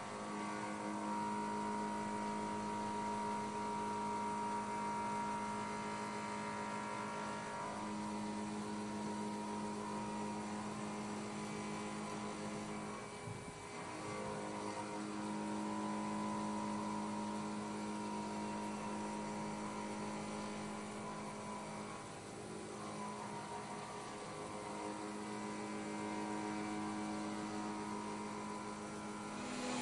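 Haas CNC milling machine running as it mills an impeller under coolant spray: a steady machine hum that shifts pitch a few times as the cut changes, with a brief dip about 13 seconds in.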